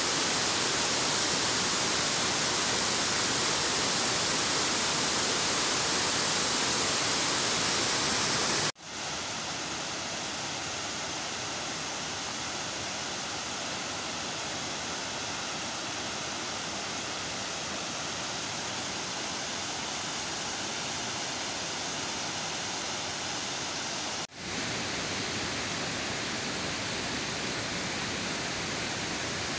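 Steady rush of river water pouring over a low concrete weir. The sound cuts out briefly about nine seconds in and again about 24 seconds in, and is quieter after the first break.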